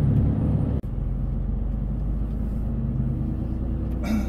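Truck engine and road noise heard from inside the cab while driving: a steady low rumble that drops out for an instant about a second in. A brief noise sounds near the end.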